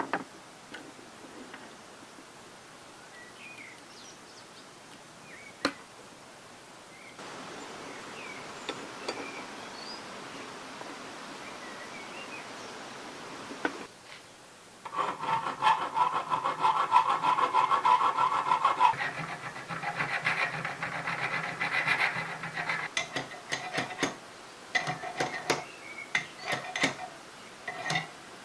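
A hand tool working rusty steel parts of an old steelyard: faint clicks at first, then from about halfway a long run of fast, ringing rasping strokes. Near the end come a few sharp metal taps.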